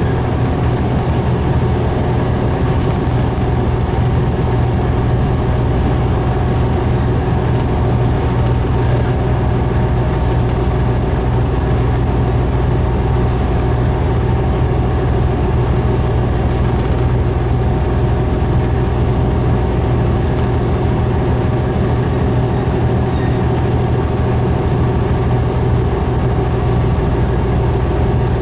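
Diesel railcar engine running steadily, a constant low drone with a few steady higher tones and no change in pitch.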